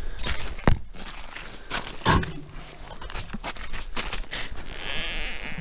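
Rubber boots crunching on snow-covered ice, with a series of short crunches and knocks.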